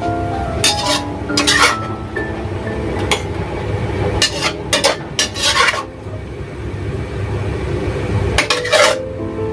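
A metal cooking utensil clinking against cookware, about eight sharp knocks at an uneven pace, over background music.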